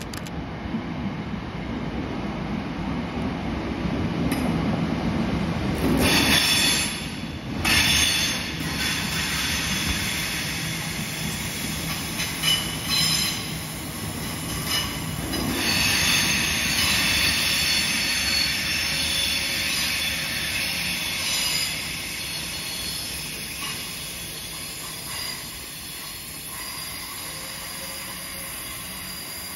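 Train of multiple-unit coaches rolling slowly past, its wheels squealing in high, thin tones on and off through the first half, with a few sharp knocks about six to eight seconds in; the running rumble fades as it draws away.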